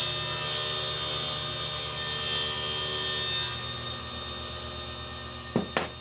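Table saw running with its blade ripping through a wide board pushed along the fence. About three and a half seconds in the cut ends and the saw hums on by itself.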